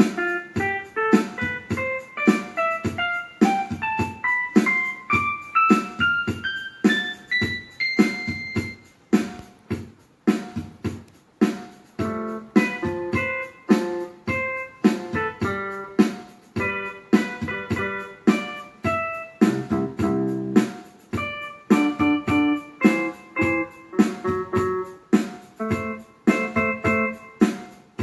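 Casio CT-X700 digital keyboard playing in a piano voice: evenly paced notes climbing in a rising run over the first several seconds, then repeated chords.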